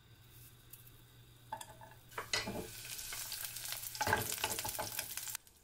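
Garlic frying in oil in a pan while it is stirred, with a few scraping strokes. The sizzle starts faint, builds from about two seconds in, grows louder about four seconds in, then cuts off suddenly near the end.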